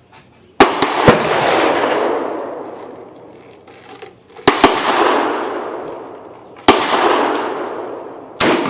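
Four loud rifle shots from a 1943 Mosin Nagant 91/30 bolt-action rifle, firing the 7.62×54R cartridge, about two to four seconds apart. Each crack is followed by a long echo that dies away over about two seconds.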